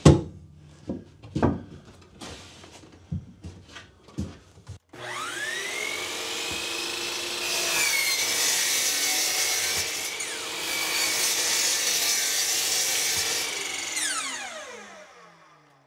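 A few knocks, then a Hitachi sliding miter saw starts about five seconds in with a rising whine, runs while its blade crosscuts the end off a plywood panel, and is switched off near the end, winding down with a falling whine.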